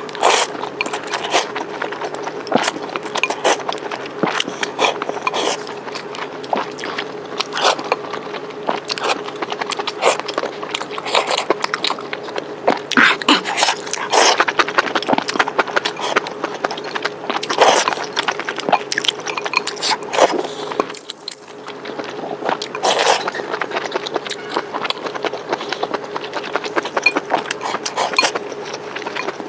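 Close-miked eating sounds: chewing and biting food from a spicy hot pot, with many short crunchy clicks and wet smacks. A steady low hum runs underneath.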